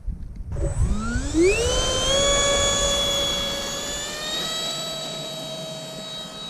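A 64 mm electric ducted fan on a 4S battery spools up with a steeply rising whine, then holds a steady, high-pitched whine at high throttle.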